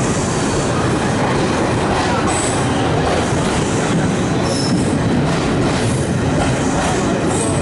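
Express passenger train running at speed, heard from aboard a coach: a steady rumble and rattle of wheels on track, with a few brief high-pitched wheel squeals.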